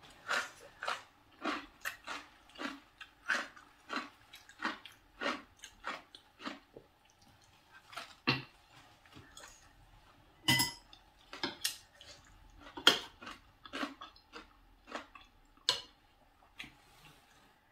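Close-up eating sounds: steady chewing and lip smacking at about two a second. A few sharper clinks of a spoon against a plate come in the second half.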